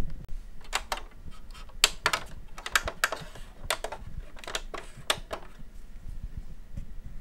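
Front-panel transport buttons of a Panasonic NV-HD635 VCR being pressed and released in quick succession: a run of sharp clicks, often in pairs, over about five seconds.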